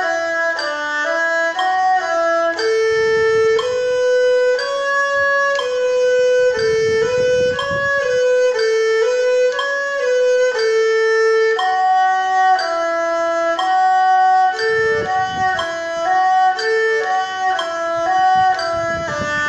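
Solo erhu bowed through a practice étude: even notes moving stepwise up and down, many of them slurred in pairs, each note held briefly and then joined smoothly to the next.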